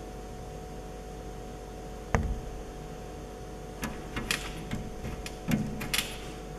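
A puppy jumping up against a glass door: a sharp thump about two seconds in, then a flurry of paw taps and scratches on the glass, over a steady low hum.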